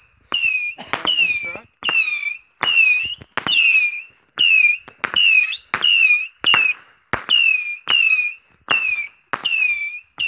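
Multi-shot firework cake firing shot after shot, about every 0.6 seconds. Each shot is a sharp pop followed by a short, slightly falling whistle, a "pew".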